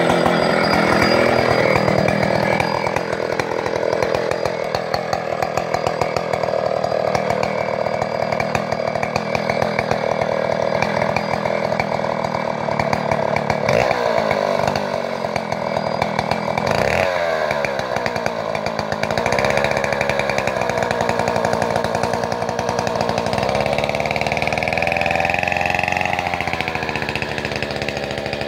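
Stihl two-stroke chainsaw cutting through a fallen tree trunk, its engine speed rising and falling as the chain works into the wood and eases off, with a few quick changes in pitch about halfway through.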